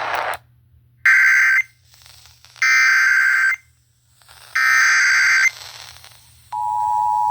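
Emergency Alert System SAME header: three short bursts of screechy digital data about a second apart. Near the end the steady EAS two-tone attention signal starts and holds, announcing a severe thunderstorm warning.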